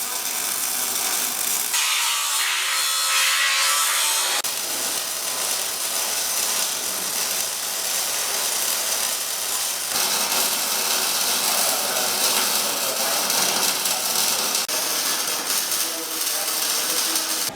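MIG welding arc on steel, a steady crackling hiss that shifts in tone a few times and cuts off sharply at the end.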